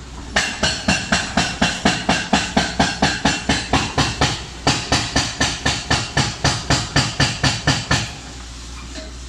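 Hydraulic breaker on an excavator hammering concrete in a fast, even run of about five blows a second. It starts about half a second in, breaks off briefly near the middle and stops about a second before the end, over a steady low engine drone.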